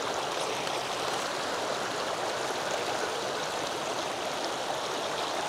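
Steady rush of the Tellico River's current, a flowing mountain trout stream.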